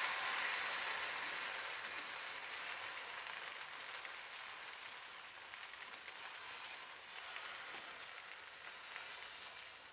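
Thin rava dosa batter sizzling on a hot nonstick tawa, a steady high hiss that slowly dies down as the lacy dosa sets, then cuts off abruptly at the end.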